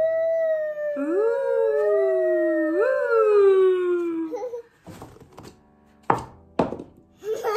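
Two voices, a woman's and a little girl's, make drawn-out spooky ghost 'oooooh' sounds together. One holds high and slowly falls, while the other slides up and down twice; both stop about four and a half seconds in. Near the end come two quick knocks as a paper-cup ghost is popped off its cup.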